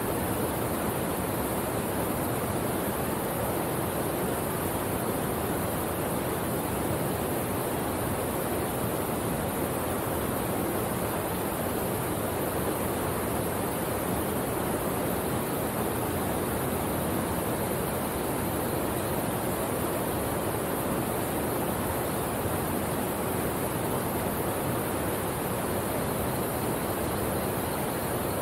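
Steady rushing of a small waterfall spilling over rocks into a forest pool, an even, unbroken wash of water sound.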